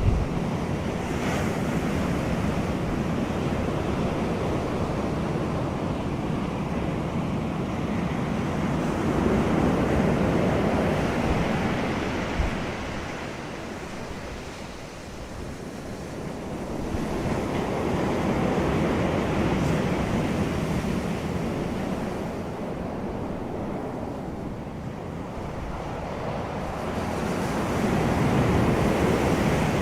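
Ocean surf: waves washing in and drawing back, the rush of water swelling and easing in slow surges about every nine to ten seconds.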